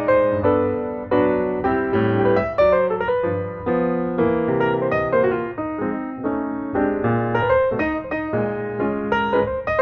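Background piano music, a lively melody of struck notes that ring and fade.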